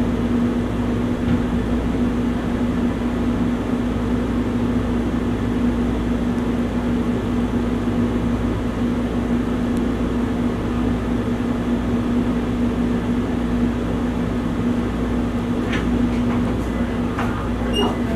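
Steady machine hum with a constant low tone over an even rumble, unchanging throughout.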